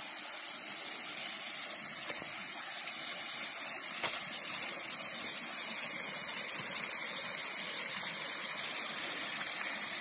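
Waterfall rushing steadily as water spills down over rocks, with a single small click about four seconds in.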